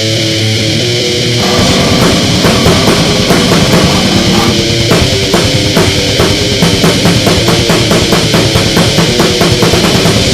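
Grindcore metal: heavily distorted guitars and bass with drums. After held chords at the start, fast, evenly spaced drum hits set in about two seconds in and run on.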